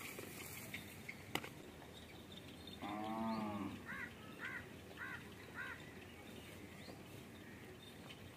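A farm animal calls once, a single pitched call of under a second, followed by four short bird chirps about half a second apart.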